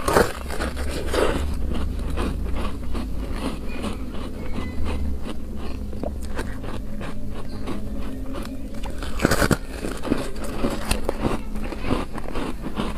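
Person biting into a slab of frozen foam ice with a loud crunch, then chewing it with many small crackly crunches; another loud bite crunch comes about nine seconds in.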